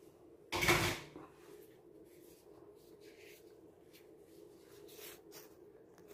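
A single short knock about half a second in, then a faint steady hum with a few light handling clicks.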